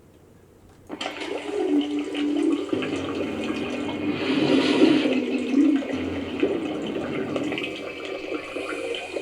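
A rushing, gushing water-like sound effect played back from an editing timeline, starting abruptly about a second in and running on steadily.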